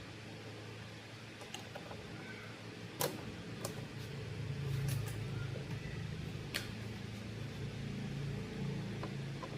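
A steady low hum with a handful of sharp clicks and taps, the loudest about three seconds in.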